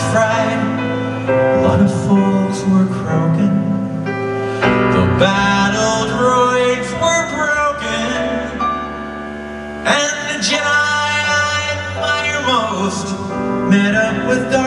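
Live band music with a man singing, recorded from the audience.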